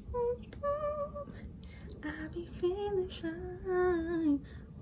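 A woman singing a wordless tune: a string of held notes that step and slide up and down, with short breaks between phrases.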